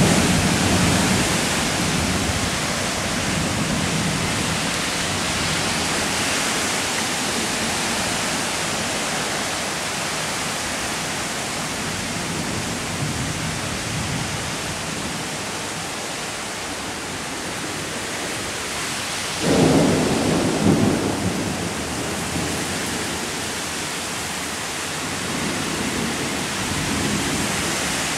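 Thunderstorm downpour: heavy rain pouring steadily in gusty wind. About twenty seconds in, a sudden louder burst of low rumbling lasts a second or two.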